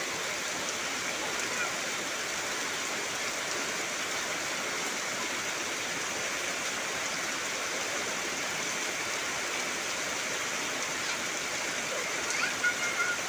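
Heavy rain falling steadily on trees, an even hiss with no let-up. A few short chirps near the end.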